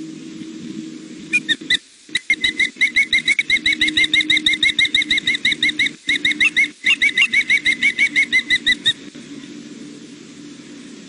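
Juvenile osprey food calling: a long, rapid series of shrill whistled chirps, about six a second. It starts a second or so in, breaks briefly a few times and stops a couple of seconds before the end. A steady low hum runs underneath.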